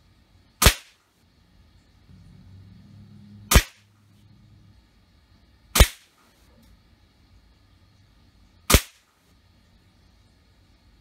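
Daisy Winchester M14 CO2-powered rifle firing pellets: four sharp shots, two to three seconds apart.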